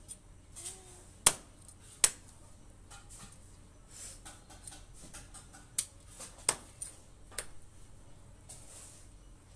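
Large knife scraping scales off a small fish held on a wooden block: scattered sharp clicks and short rasping scrapes, the two loudest clicks about one and two seconds in.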